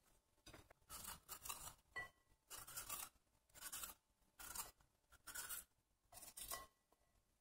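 Kitchen knife slicing strips off a bell pepper held in the hand, faint short cuts about once a second.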